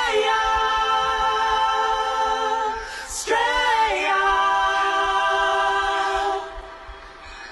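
Music: choir-like singing on long held chords, breaking about three seconds in and fading out near the end.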